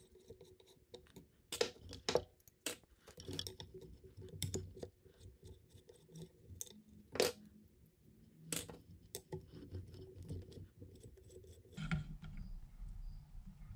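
Scattered sharp metal clicks and clinks as a hand screwdriver works the screws out of an electric skateboard motor hub's retaining plate on the truck. A low hum comes in near the end.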